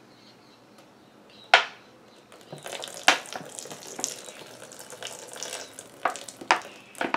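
Hand stirring and pulling up a large batch of wet, half-activated foam slime made of glue and foam, giving sticky squelching and crackling from about two and a half seconds in. One sharp click comes about a second and a half in.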